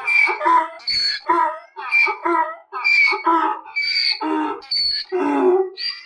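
Donkey braying: a loud, continuous run of hee-haw calls, alternating a higher wheezy note and a lower one about twice a second.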